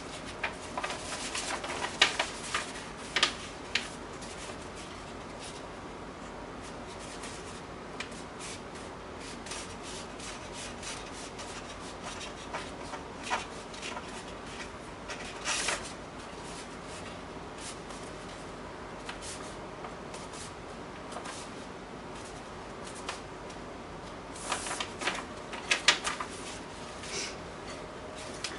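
A sheet of paper being folded by hand on a wooden table: crinkling rustles and rubbing as the creases are pressed flat with the fingers. The rustles come in short clusters, busiest at the start, about halfway through and again near the end, over a steady faint hiss.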